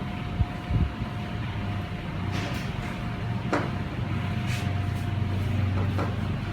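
Steady low rumble of background noise with a thin steady hum. Two short knocks come about half a second and a second in, and a few brief scratchy strokes follow later.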